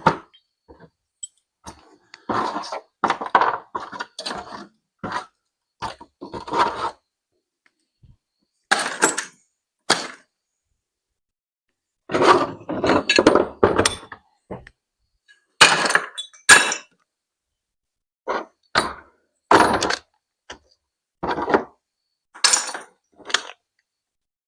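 Loose metal parts clattering and clinking as they are tossed into a parts bucket, in a string of short bursts with silent pauses between.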